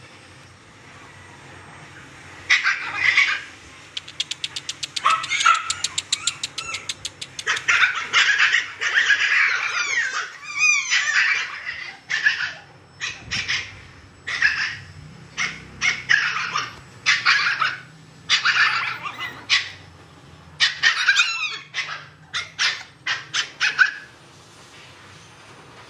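Siberian husky puppies yipping, barking and whining in a long run of short, high calls, with wavering rising-and-falling whines near the middle. A fast run of clicks comes about five seconds in.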